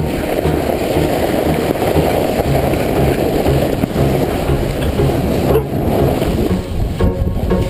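Sled sliding downhill over packed snow, a steady rumbling scrape picked up through the sled-mounted camera.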